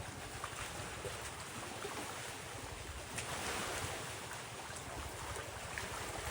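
Wind blowing across the microphone: a steady rumbling hiss that swells about three seconds in.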